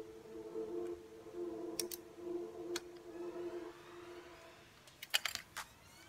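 Small clicks and scrapes of a screwdriver and fingers prying the wire spade connectors off a refrigerator's PTC starter relay, with a cluster of sharper clicks near the end. A faint steady hum runs underneath and fades out about four seconds in.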